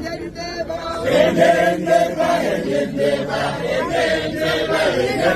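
A group of people chanting and singing together in unison. A lead voice comes first, then the fuller group joins about a second in.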